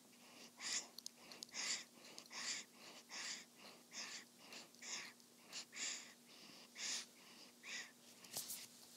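Sleeping newborn baby breathing softly with a pacifier in her mouth: short, slightly wheezy breaths about once a second, with a few faint clicks. There is a brief rustle near the end.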